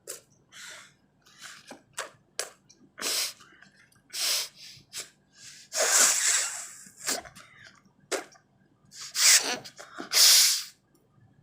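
A woman forcefully blowing her nose without a handkerchief: a run of short, sharp blows, with longer, louder blows about six seconds in and twice near the end. Her nose is dry and gives little.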